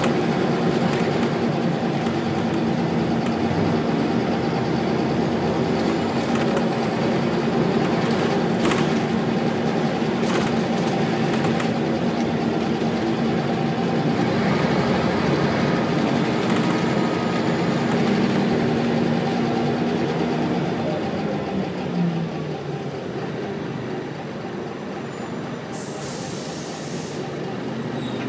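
Inside a Wright Solar-bodied Scania single-deck bus on the move: the diesel engine runs steadily under road noise and body rattles, with a few sharp knocks. Near the end the engine note falls and the sound drops as the bus slows, and a short hiss follows.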